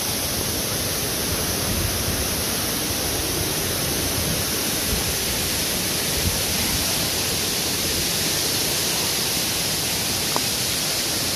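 Steady rushing noise, even throughout, with a low rumble underneath.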